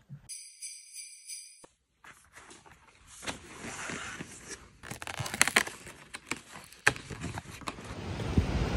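Metallic jingling like small bells, in short clusters, with wind noise on the microphone building near the end.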